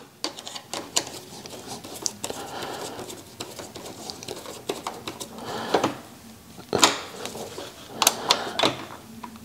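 Small metal clicks and ticks of an Allen key turning a cap-head screw into a motorcycle's shift linkage, the tool clinking against the screw head and linkage at an uneven pace, with a few louder clicks near the end.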